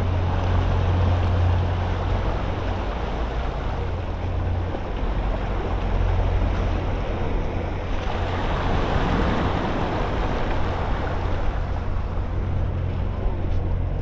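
Ocean surf washing in, a continuous rush that swells about two-thirds of the way through, over a steady low rumble.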